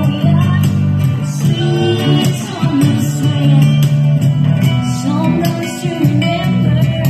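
A small live band playing: a woman singing into a microphone over guitars and a conga with other hand drums.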